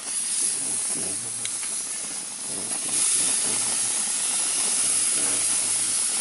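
Chicken breasts and fresh tomato slices sizzling on a gas grill's hot grates, a steady hiss that gets louder about three seconds in as more slices go down.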